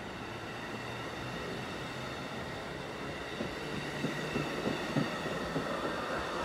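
Amtrak Amfleet passenger coaches rolling past on the rails: a steady rumble of wheels on track with a faint high steady ringing over it. A run of sharp clicks from the wheels crossing rail joints comes in a few seconds in.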